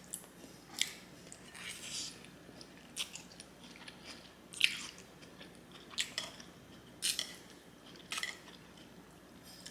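A person chewing food close to the microphone: short, wet mouth sounds about once a second.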